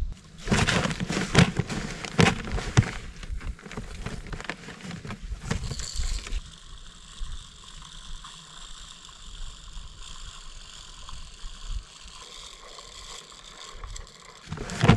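Hand-cranked broadcast seed spreader: close rattling and clicking of its crank gears and seed for the first few seconds, then fainter and sparser.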